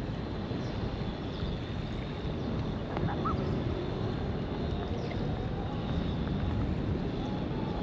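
Steady outdoor ambience at a river's edge: small waves lapping at the shore over a low, even rumble, with a brief faint high note about three seconds in.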